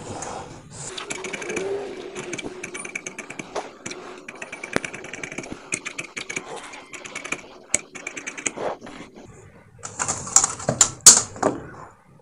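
Tailor's scissors cutting through blouse fabric on a table, a long run of quick clicking snips. About ten seconds in come louder rustles and scrapes as the fabric is handled.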